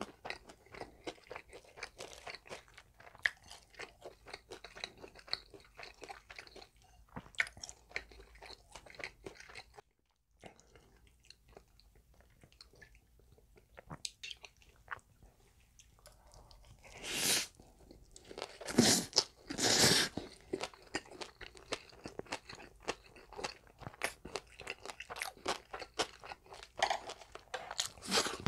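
Close-miked chewing and crunching of breaded, deep-fried pork cutlet and spicy noodles: many small crisp crunches and mouth sounds, with a few louder, longer bursts of eating noise a little past the middle.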